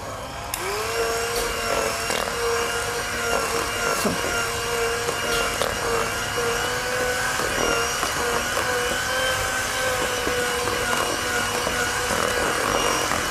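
Electric hand mixer switched on about half a second in: its motor whine rises quickly, then runs steadily as the beaters mix Spätzle dough in a plastic bowl, with a few short clicks along the way.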